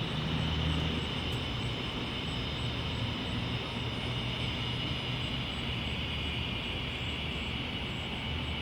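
Cicadas in the trees droning in a steady, continuous high buzz, with a low steady rumble underneath.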